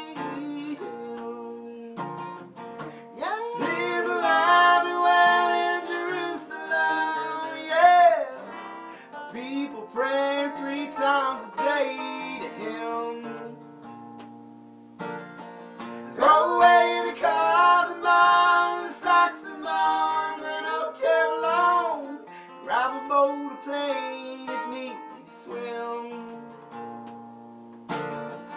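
Acoustic guitar accompanying a man's singing voice. The guitar plays on its own for the first few seconds and again briefly in the middle, with the singing coming back in after each gap.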